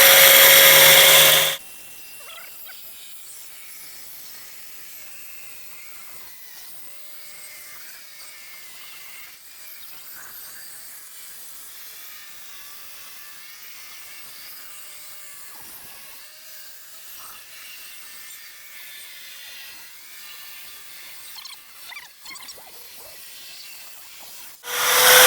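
Angle grinder fitted as a circular saw with a 4-inch saw blade, running with a high whine while cutting thin plywood. About a second and a half in it drops sharply to a faint, wavering whine with light scraping, then comes back loud near the end.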